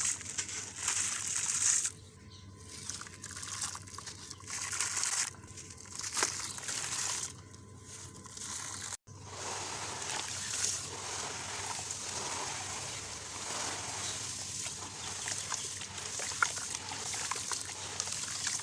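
Gritty reused cement and concrete stones crumbling in water, with sloshing and trickling. For the first several seconds the crumbling comes in short bursts with pauses; after a brief break about nine seconds in it runs on steadily, crackling, with scattered sharp clicks.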